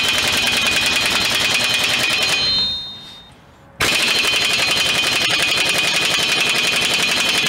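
Harbor Freight impact wrench hammering rapidly on a tight front axle hub nut that it does not break loose. It trails off about two and a half seconds in, stops for about a second, then starts hammering again.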